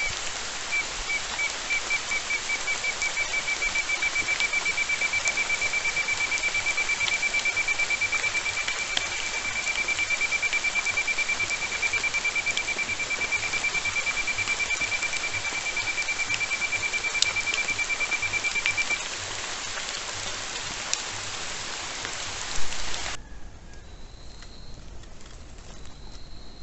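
Steady rain falling on forest foliage, a dense even hiss, with a forest animal's fast trill of identical notes at one high pitch running over it for most of the time. About three-quarters of the way through the rain cuts off abruptly to a much quieter forest with faint, high chirps.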